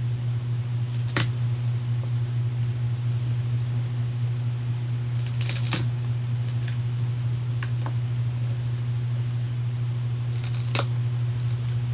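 A steady low hum, with a few light clicks and taps: one about a second in, a small cluster around five to six seconds in, and more near the end, as a hand picks from a small plastic container at the table.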